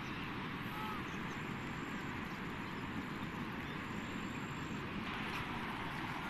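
Muddy floodwater rushing through a flooded rice field, a steady rushing noise.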